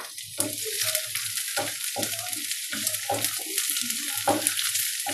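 Shredded cabbage sizzling in hot oil in a nonstick frying pan while a wooden spatula stirs and scrapes it. There is a knock at the very start, and the sizzling sets in about half a second later.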